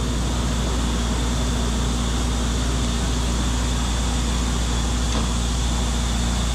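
Steady loud rushing hum of the blower-fed wood turbo stoves that heat the big palkova pans, with a low drone and a faint high whine held throughout.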